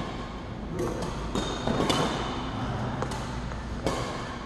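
Badminton racket striking shuttlecocks in backhand cut shots, several sharp hits at irregular spacing about a second apart.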